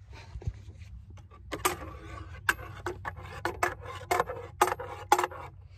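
Metal spoon stirring hot chocolate in a metal canteen cup, clinking and scraping against the cup's sides about four times a second, starting about one and a half seconds in.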